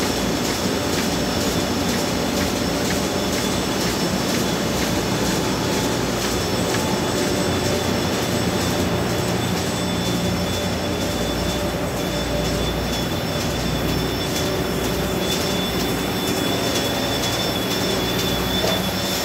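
Heidelberg Speedmaster CD 102 six-colour sheetfed offset press running: a steady, dense mechanical din with a thin high whine that grows stronger in the second half.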